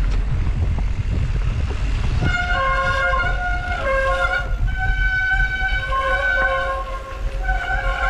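Bicycle disc brakes squealing: shrill sustained tones that start about two seconds in and jump between pitches as the brake is dragged on the descent, over steady low wind and tyre rumble.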